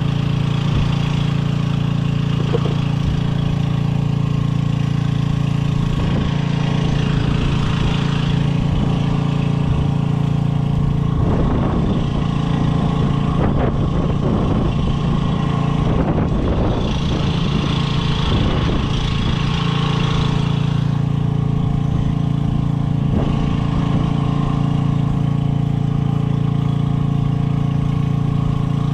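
Steady low mechanical hum of a running motor, with scattered clicks and rattles in the middle stretch.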